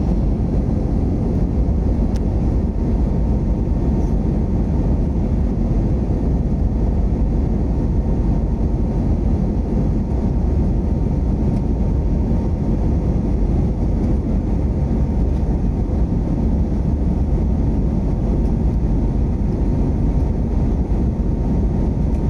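Jet airliner cabin noise during the climb after takeoff: a steady, low engine and airflow roar through the fuselage, with a faint steady tone riding on it.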